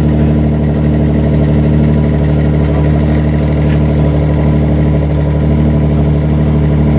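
Diesel race truck engine idling, a steady even note that holds the same pitch without revving.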